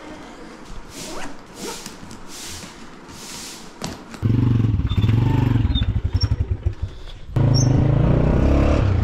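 Quiet clattering and handling noises, then about four seconds in a vehicle engine cuts in loud and runs with a pulsing, uneven note, dropping back briefly near the end before resuming.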